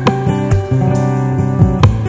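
Background music on acoustic guitar, strummed chords with held notes ringing between strums.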